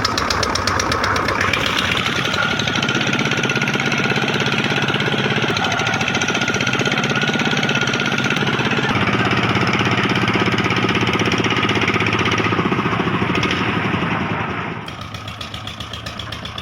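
A small electric motor and gearing on a homemade mini tractor, running steadily with a fast even chugging pulse and a steady high whine. It turns quieter about fifteen seconds in.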